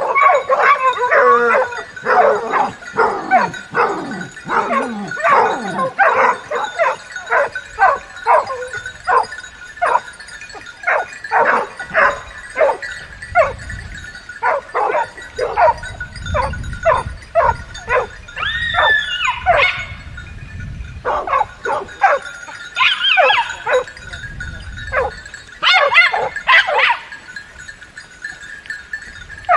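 A pack of hunting hounds barking and baying in many overlapping calls, densest in the first few seconds and thinning out later, with a low rumble underneath through the middle.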